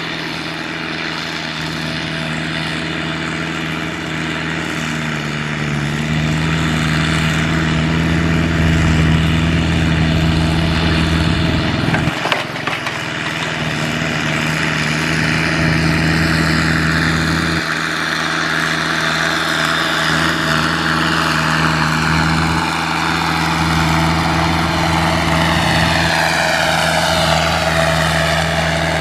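Kubota M6040SU tractor's diesel engine running steadily under load as it works a flooded paddy, with a higher whine that falls in pitch near the end and a brief dip around the middle.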